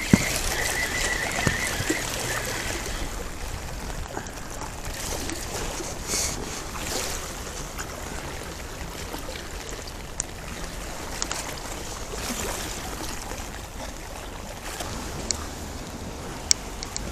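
Steady hiss of rain falling, with scattered small sharp ticks. A thin, steady high whine runs through the first two or three seconds.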